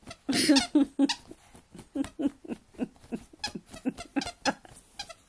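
A dog scratching and digging at a bed sheet to reach a toy underneath, with a quick run of short whining grunts, about three a second.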